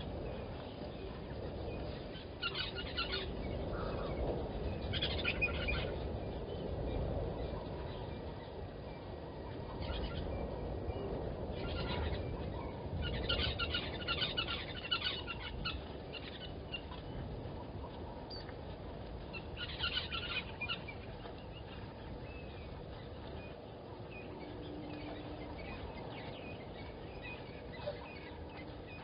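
Bush ambience: birds calling in several short chattering bursts, the longest about two seconds, over a steady low background rumble.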